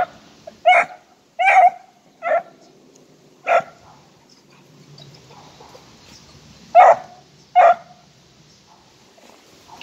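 Beagle puppy barking in short, sharp yips, five in quick succession and then two more after a pause.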